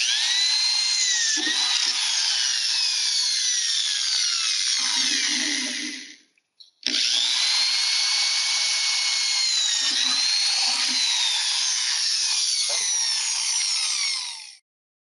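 Electric hand drill running at speed as its bit bores out a hole in the mailbox's cast-aluminum wall, a steady motor-and-cutting noise with a whine that keeps sliding down in pitch. It stops about six seconds in, starts again abruptly a second later, and stops just before the end.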